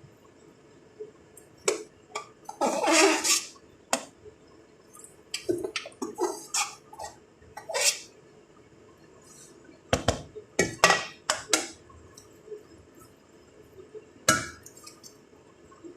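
A serving spoon knocking and scraping against a cooking pot as rice is spooned in for the next biryani layer: irregular clinks and short scrapes, with a longer scrape about three seconds in and a quick run of knocks near the middle.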